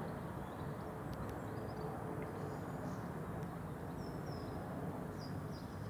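A few faint, short, high bird chirps scattered over a steady low rumble of background noise.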